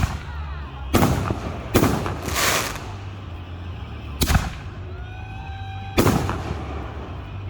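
Aerial fireworks bursting: several sharp bangs spread a second or two apart, one of them followed by crackling. Thin whistling tones rise briefly about five seconds in.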